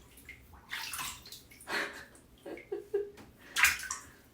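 Water splashing in a bathtub as a toddler plays in it, four or five short splashes about a second apart.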